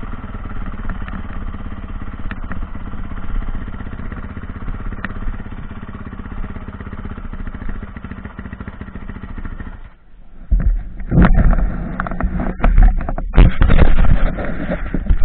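Dirt bike engine running at low speed with a steady rapid beat, shut off about ten seconds in. Then loud, irregular knocks and rubbing as the helmet-mounted camera is handled.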